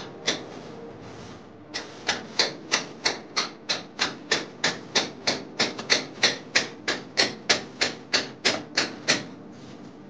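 A rapid, even series of sharp clicks, about three a second, over quiet background music.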